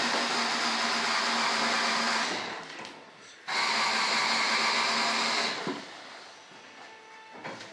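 Electric drill driving screws, running in two bursts of about two seconds each, the first winding down, then a sudden restart and a second wind-down, followed by a faint click near the end.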